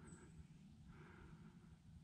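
Faint, quick, heavy breathing of a hunter climbing a steep slope, with a breath about every two-thirds of a second: panting, out of breath from the climb.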